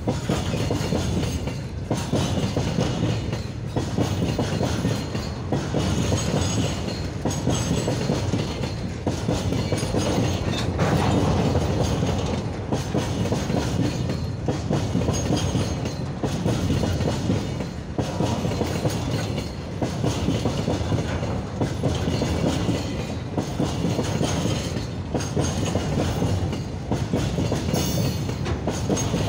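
Freight train's covered goods wagons rolling past close by, their steel wheels clattering over the rail joints over a steady rumble, in a rhythm that repeats about every two seconds.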